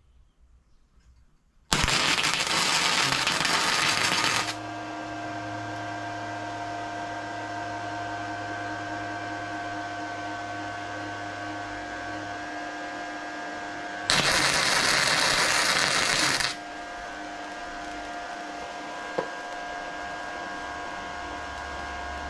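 Two tack welds made with a flux-core wire welder running .030 flux-core wire on 1/4-inch steel plate: each is a loud, crackling arc lasting about two and a half to three seconds, the first about two seconds in and the second about fourteen seconds in. Between and after them a steady machine hum with a faint whine runs on, and there is one short click near the end.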